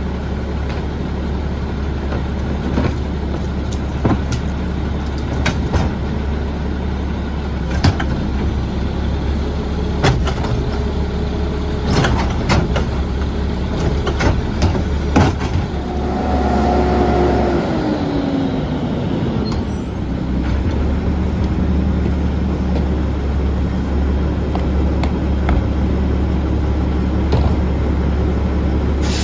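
Mack LE garbage truck's diesel engine idling steadily, with loud knocks and bangs as trash carts are dumped into its front carry can. A brief falling whine comes about midway.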